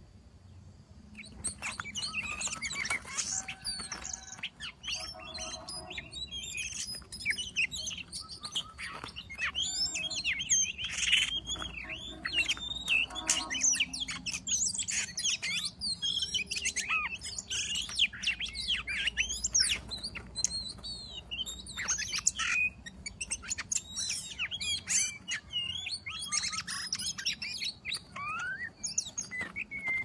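Oriental magpie-robin (kacer) singing a rapid, varied string of whistles and chirps that starts about a second in and carries on almost without a break.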